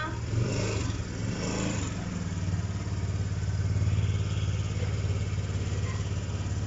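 Motor scooter engine running steadily at idle.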